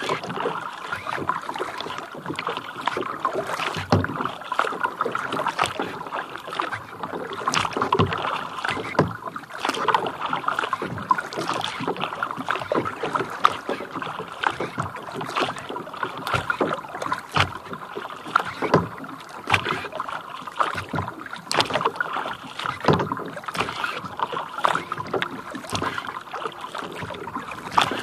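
Water lapping and splashing against a plastic kayak hull on a lake: a steady trickling wash with frequent small, irregular slaps and drips.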